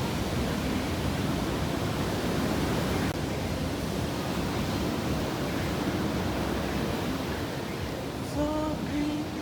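Steady rushing of ocean surf breaking on the reef. Faint voices come in near the end.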